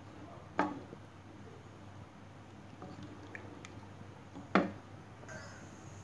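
Wooden spatula stirring thick coconut-milk curry in a saucepan, knocking sharply against the pot twice: about half a second in and again about four and a half seconds in.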